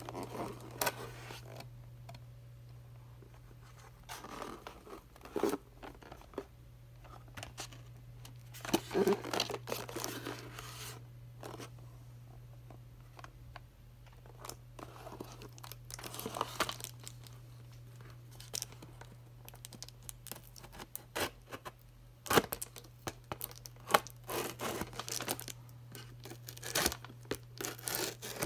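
Cardboard toy-box packaging and its clear tape being handled and torn apart by hand: irregular rustling, ripping and sharp clicks in bursts, over a steady low hum.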